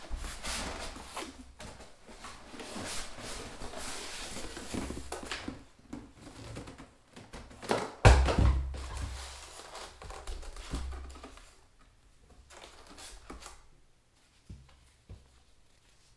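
Cardboard box and polystyrene foam packing being handled as a boxed stand mixer is tipped out: irregular rubbing and scraping, with one heavy thump about halfway through, the loudest sound. A few light knocks follow near the end.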